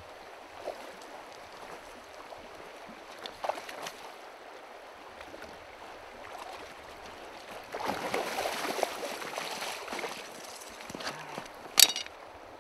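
Shallow, stony river running steadily, with a rougher stretch of splashing water about two-thirds of the way in. A single sharp click comes near the end.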